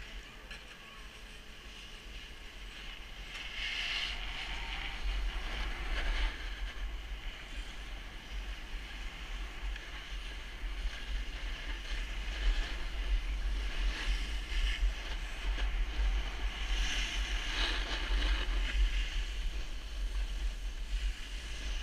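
Wind buffeting a GoPro's microphone with a low rumble, over the hiss and scrape of skis or a board sliding on packed snow down a groomed slope. It grows louder a few seconds in as speed builds, with several sharper scraping surges.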